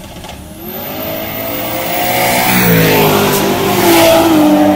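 Ford Barra inline-six drag car launching and accelerating hard down the strip, with a second car racing in the other lane. The loud engine note climbs in pitch, then drops as the cars pass close by, about two and a half seconds in.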